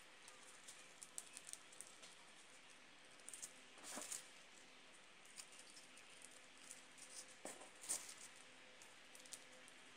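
Faint rustling and crinkling of tissue paper being handled on a tabletop, with scattered small ticks and two louder brief crackles, about four and eight seconds in.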